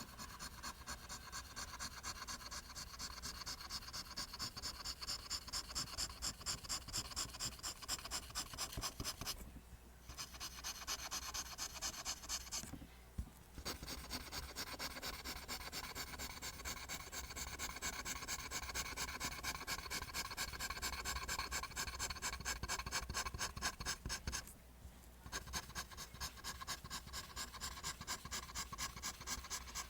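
Graphite pencil drawing lines on paper: a steady run of quick, rhythmic scratching strokes, broken by three short pauses, about ten, thirteen and twenty-five seconds in.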